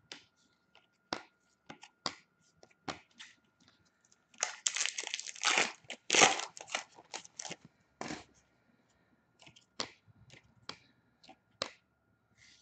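Foil wrapper of an Upper Deck hockey card pack torn open and crinkled about halfway through, among many short clicks and snaps of trading cards being handled and flipped through.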